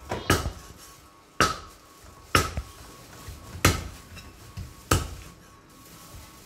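A steel cleaver chopping raw chicken on a thick round wooden chopping block: five heavy chops, about a second and a quarter apart.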